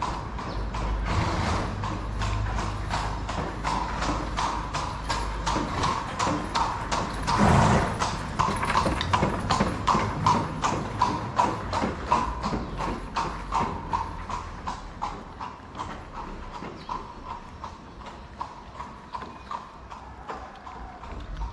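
A cat chewing wet cat food close to the microphone: steady, rhythmic wet chewing and smacking clicks, about two to three a second, getting softer in the last few seconds. A short rush of noise comes about seven seconds in.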